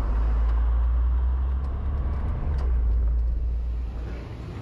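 Kei van's small engine running with a loud, steady low rumble that eases off about four seconds in.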